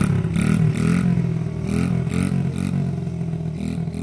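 Small dirt bike engine revving up and down as the bike pulls away, fading as it goes.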